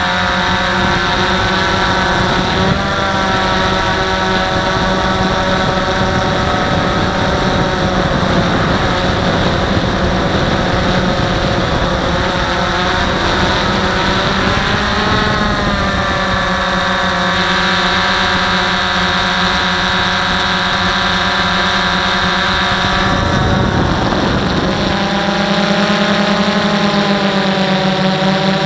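DJI Phantom 1 quadcopter's electric motors and propellers whining steadily, heard up close from a camera mounted on the drone itself. The pitch of the motor tones shifts as the drone manoeuvres, about halfway through and again near the end.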